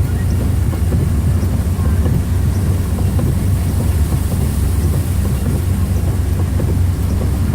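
Car driving slowly through floodwater, heard from inside the cabin: a steady, loud low rumble of the engine and tyres moving through water.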